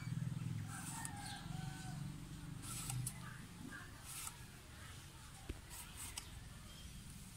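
Chickens in the background, a rooster crowing and hens clucking, over a steady low hum. Several short, crisp cuts are heard as snake gourd is sliced into rings on a curved fixed-blade cutter.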